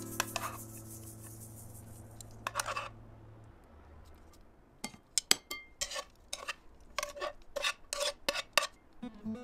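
Serving utensils clinking and scraping against a pan and a ceramic bowl as spaghetti is lifted and set into the bowl, with a quick run of sharp clicks in the second half. A steady low hum runs through the first few seconds, then stops.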